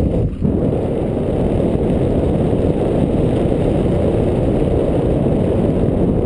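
Wind rushing over a GoPro camera's microphone in the airflow of a parachute descent: a loud, steady low rumble with a brief dip just after the start.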